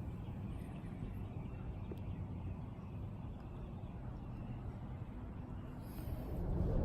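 Faint, steady low outdoor background rumble that starts to swell near the end.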